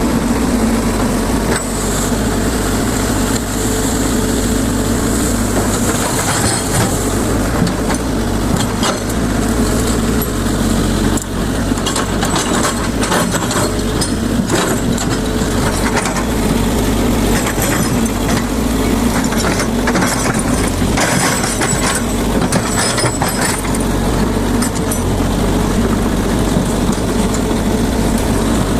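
Hydraulic excavator's diesel engine running steadily under work, with scattered sharp cracks and knocks, most of them bunched in the middle stretch.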